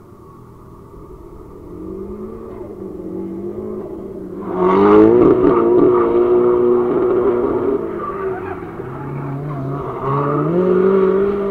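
A drift car's engine revving hard through a corner, with tyres squealing. It gets loud suddenly about four and a half seconds in, the revs dip around eight seconds, then climb again as the car comes close.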